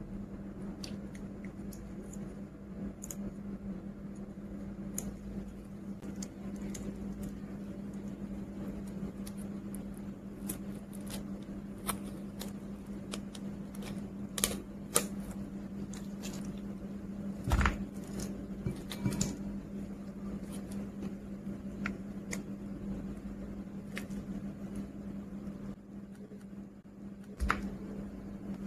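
Plastic jelly cups and candy wrappers being handled with gloved hands: scattered light clicks, crinkles and taps of plastic, over a steady low hum. A few sharper knocks come in the middle, and one near the end as a jelly cup is set into a glass bowl.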